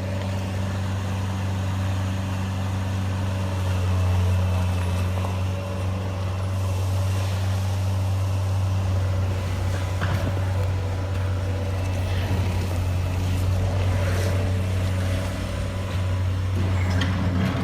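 Radio-controlled toy construction truck running with a steady motor hum that swells slightly now and then.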